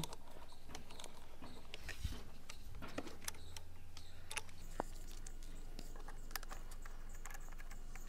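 Faint, irregular small clicks and scrapes of a high-pressure hose's threaded fitting being screwed by hand onto the outlet of an INGCO electric pressure washer.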